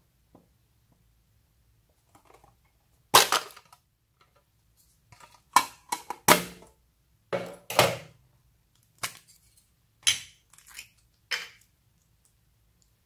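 Clear slime being worked by hand, giving about ten sharp wet pops and crackles at irregular intervals, the first about three seconds in.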